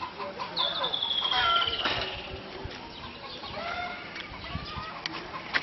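Birds calling outdoors: several short pitched calls, and about half a second in one long high whistle that slowly falls in pitch.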